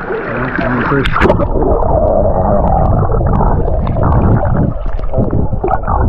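A camera plunging into shallow seawater about a second in, then muffled underwater sloshing and low rumbling with scattered small clicks.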